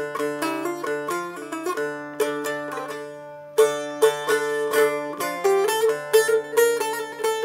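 Instrumental passage of a Turkish folk song (türkü): a plucked string instrument plays a quick melody of picked notes over steadier low notes, pausing briefly a little before the middle and coming back in with louder strokes.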